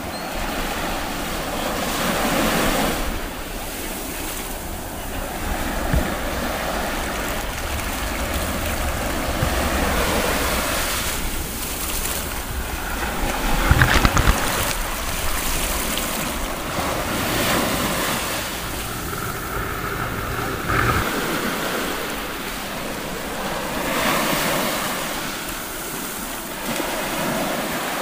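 Ocean surf breaking and washing up a sandy beach, with wind buffeting the microphone. About halfway through comes the loudest moment, a burst of churning water as a wave washes over the camera.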